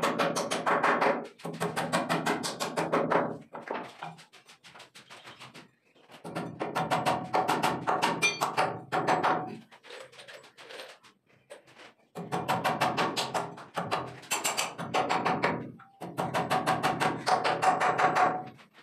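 Background music with a rapid, steady percussion beat, playing in phrases of about three to four seconds with short breaks between them.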